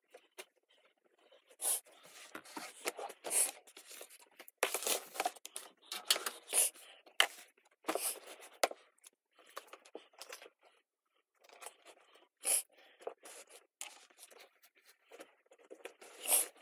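Clothes and other items rustling and scraping as a suitcase is packed by hand, in irregular bursts with a few short, sharper crackles.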